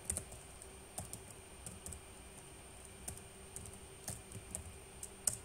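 Computer keyboard being typed, irregular separate key clicks, with one louder keystroke near the end.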